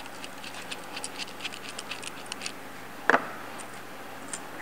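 Light metallic clicks and ticks from hands working a metal band clamp for an intercooler hose, with one louder knock about three seconds in.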